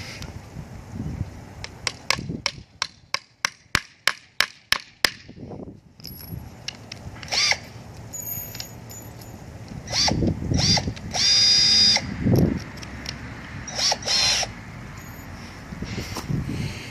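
Power drill running in short bursts, each rising in pitch as it spins up, with one steady run of about a second and a half past the middle. Before it comes a quick run of about ten sharp clicks or taps.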